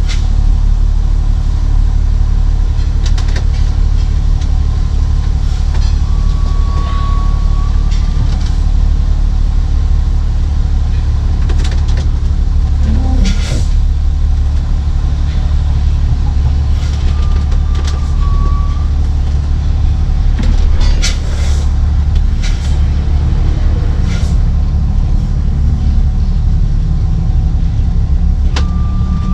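Diesel engine of a 2005 American Eagle diesel-pusher motorhome idling steadily, heard from inside the cab. Scattered clanks and knocks, and a brief high beep three times.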